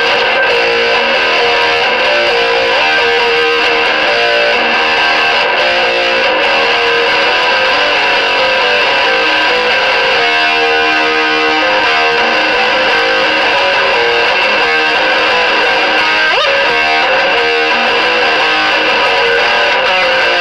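Heavily distorted electric guitar riffing in a high-gain metal tone: an Epiphone Prophecy with humbuckers played through a Mesa Boogie Nomad 55 on its second channel and a Hughes & Kettner TubeMeister 36, with gain pedals in front. Steady, loud playing with held notes and chords, and one quick upward pitch glide about sixteen seconds in.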